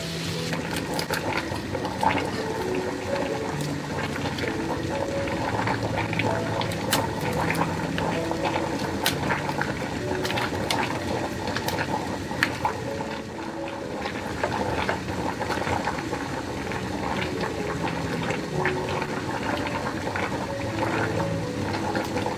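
Prawns frying in oil and lemon juice in a nonstick pan: a steady sizzle and bubbling with many sharp crackles and pops. Background music plays under it.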